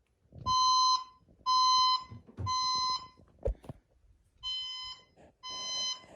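System Sensor SPSCWL fire alarm speaker sounding a recorded fire alarm horn tone in the temporal-three evacuation pattern: three half-second blasts, a pause, then three more, the second set quieter. A brief low thump falls in the pause.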